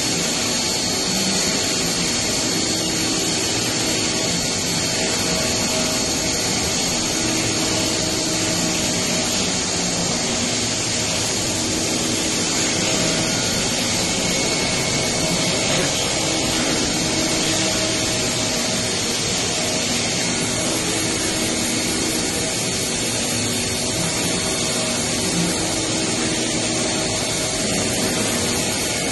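Industrial machinery running steadily: a dense mechanical noise with a constant high-pitched whine, and lower hums that come and go every few seconds.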